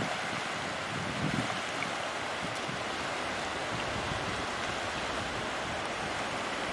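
Shallow sea water washing and rushing steadily around a wader's legs and a hand net, with a few brief low bumps about a second in.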